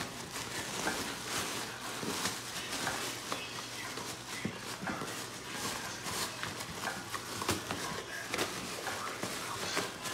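Black plastic bin bag crinkling and rustling as two Shih Tzu puppies tug and paw at it in a cardboard box, with many short crackles and claws clicking and scratching on the tile and cardboard.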